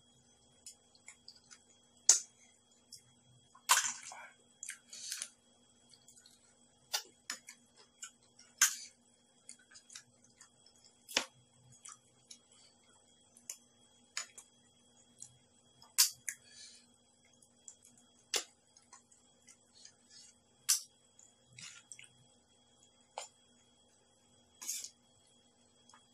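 Metal spoon clinking and scraping against a plastic bowl of rice and on clam shells while eating stir-fried clams: sharp scattered clicks every second or two, with a few short rustling bursts, over a faint steady hum.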